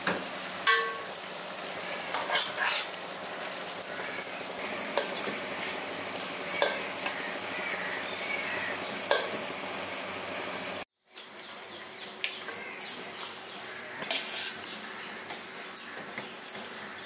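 Steel spoons scraping and knocking against an aluminium pot while chicken masala and rice are layered for biryani, over a steady sizzling hiss. The sound cuts out briefly about eleven seconds in, then the spoon knocks resume.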